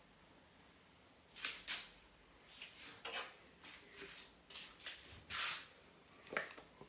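Light kitchen handling noises at a stove: a scatter of short rustles, taps and scrapes as small containers and pots are handled, with a slightly longer rustle near the end.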